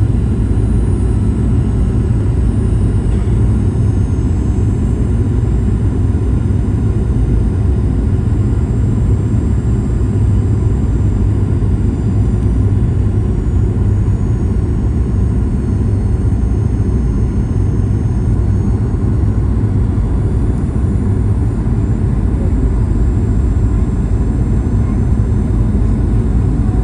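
Steady in-flight cabin noise inside a Boeing 737-900ER: a loud low rumble of airflow and the CFM56-7B engines, with faint high whining tones that drift slowly in pitch.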